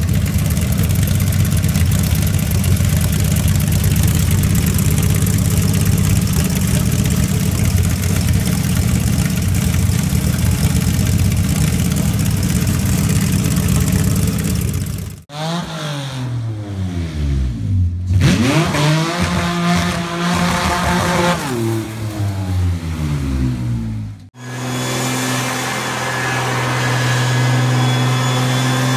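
Honda J35 V6 swapped into a VW Beetle: the engine running steadily for about 15 s, then revved up and down over and over. About 24 s in, a Cummins ISB turbodiesel in a Ford F1 pickup takes over, running at a steady speed.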